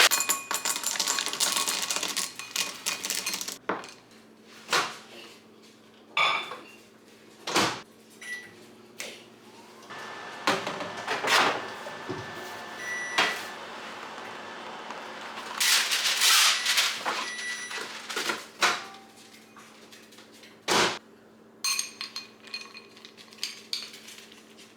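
Melting-chocolate pieces rattling into a bowl and kitchen clinks and knocks, with a few sharp clicks and short electronic beeps. A microwave oven then runs with a steady low hum, melting the chocolate.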